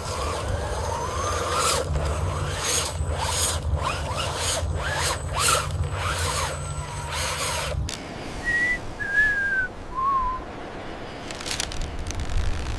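Machinery running with a steady low hum, knocks and squeaky gliding tones, cutting off about eight seconds in. A few short whistle-like chirps follow.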